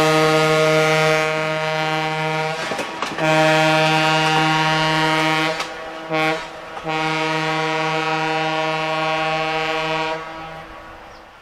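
Diesel locomotive air horn sounding the grade-crossing signal: two long blasts, a short one, then a final long one, all on one steady pitch.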